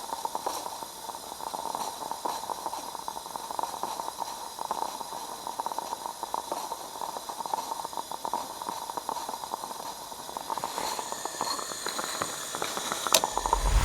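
Geyser (moka pot) coffee maker on a camping gas burner bubbling and gurgling steadily as the brewed coffee is forced up into the top chamber, over the burner's steady hiss. A single sharp click comes near the end.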